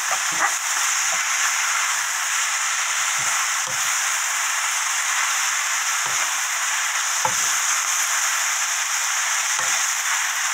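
Fish cake and aged kimchi sizzling steadily in a nonstick frying pan over high heat while being stir-fried with a silicone spatula, with a few light knocks of the spatula against the pan.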